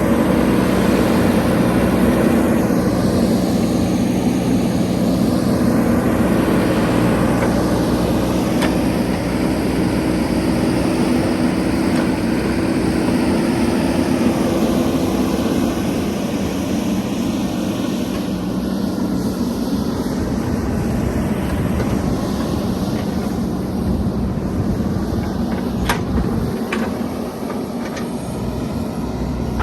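JCB 3DX backhoe loader's diesel engine running steadily, its note changing about halfway through, with a few sharp clicks near the end.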